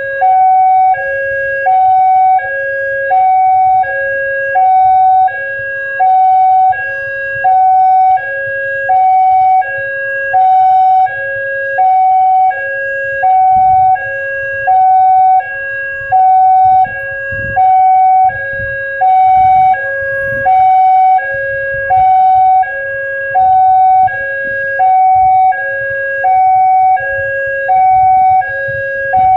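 Railway level-crossing warning siren sounding a two-tone alarm: a lower and a higher tone alternate, each about half a second long, the pair repeating about once a second. It warns that the crossing is closing for an approaching train. A low rumble runs underneath, heavier in the middle.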